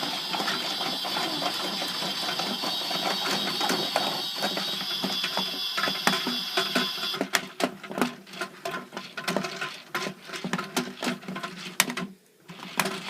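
Washing machine and tumble dryer running with a whir and a rattling, clicking mechanism. A steady high whine stops about seven seconds in, leaving the irregular clicking and rattling.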